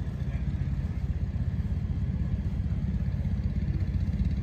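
An engine running steadily at constant speed, a low even drone with no change in pitch.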